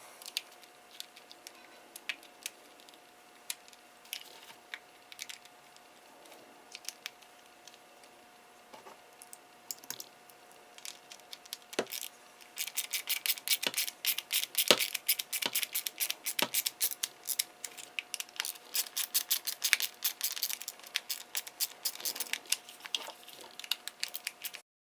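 Scattered clicks and taps of a Dremel 300 rotary tool's plastic housing being fitted together and screwed shut, then from about halfway a long run of rapid, louder clicking as the screws are driven in.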